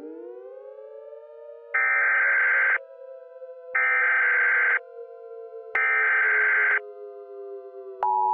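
Emergency Alert System SAME header: three one-second bursts of warbling digital data tones, sent about two seconds apart. About eight seconds in, the steady two-tone EAS attention signal begins. Underneath runs a low synthesized drone whose tones slowly glide in pitch.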